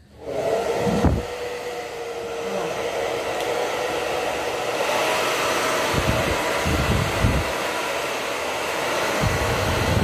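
Taiff Tourmaline Ion 2100 W hair dryer switched on just after the start, then running steadily with a motor whine under its rush of air. A few low gusts of wind noise hit the microphone now and then as the airflow is felt by hand.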